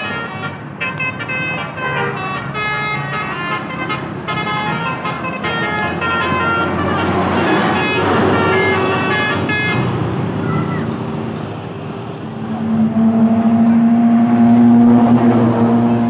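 Bus telolet horn playing a rapid melody of short, changing notes. Then the noise of passing traffic swells, and a long, steady low tone sounds from about three-quarters of the way through.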